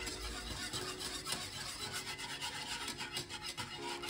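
Wire whisk beating eggs and sugar in a bowl, its wires scraping against the bowl in quick, even strokes.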